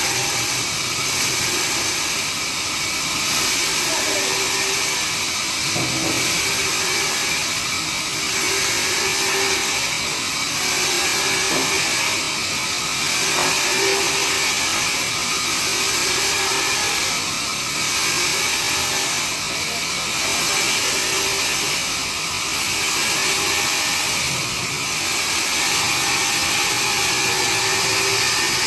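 Sawmill band saw running through a log: a loud, steady whine and hiss that swells and eases about every two seconds.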